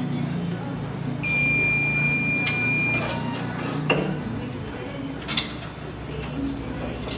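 Heat press timer alarm beeping: one steady high tone of about two seconds, signalling the end of the press cycle. Then the press's clamp is released with a sharp click about four seconds in, and another click comes as the upper platen is swung aside.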